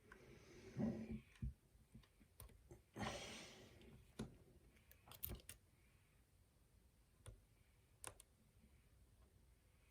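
Faint, scattered clicks and scrapes of a lock pick and tensioner working the pins of a pin-tumbler challenge lock, with two brief rustles, the louder one about a second in and a longer one about three seconds in.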